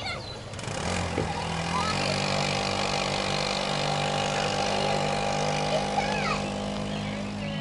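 Go-kart's small engine running steadily, its pitch stepping up twice early on and then holding, with a few short calls over it.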